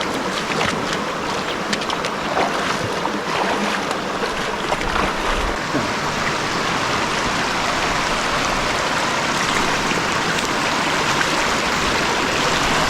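Steady rush of river water, with some splashing in the first few seconds, as runners wade through a river crossing.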